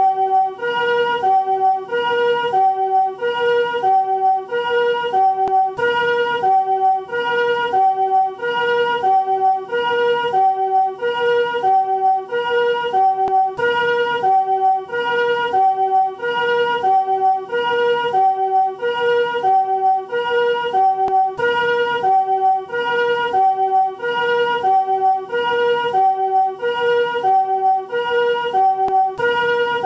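Japanese ambulance siren of the newer chord-tone 'comfort siren' type: a steady two-tone pee-po alternation between a higher and a lower note, each note sounded as a soft chord rather than a single tone. One high-low cycle takes about 1.3 seconds.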